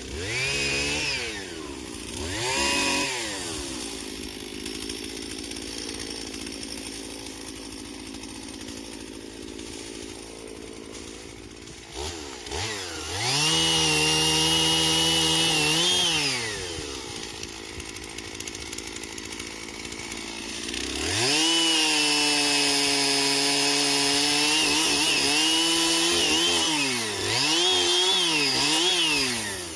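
Two-stroke chainsaw: two quick throttle blips, then idling, then held at full revs for a few seconds, and later for a longer stretch of about five seconds followed by a dip and a final rev near the end.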